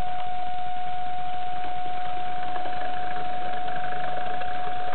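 Model railway trains running past on the track: a steady high whine that holds one pitch, over an even rattling hiss of wheels on rail.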